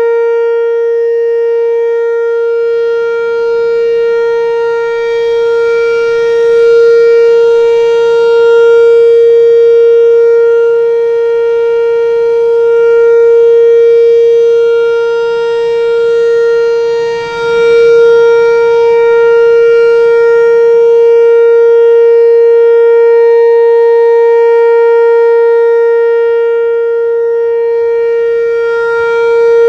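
Whelen WPS-4004 electronic outdoor warning siren sounding its steady alert tone at one unchanging pitch, its loudness swelling and easing slightly, with a brief dip about 17 seconds in.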